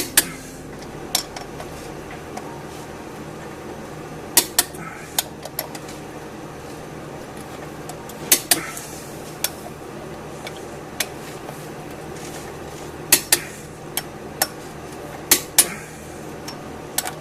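Click-type torque wrench clicking as the flywheel bolts are brought up to torque in steps. Each is a sharp metallic click, alone or in a close pair, every second or few seconds.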